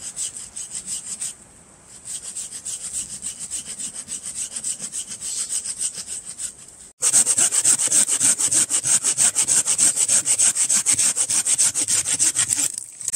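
Hand saw cutting wood with quick, even back-and-forth strokes, about four a second. The strokes pause briefly about a second and a half in, then break off sharply around seven seconds and start again louder.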